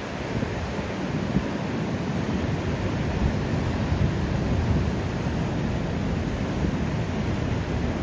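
Ocean surf washing on a beach, a steady hiss of broken waves without a clear break.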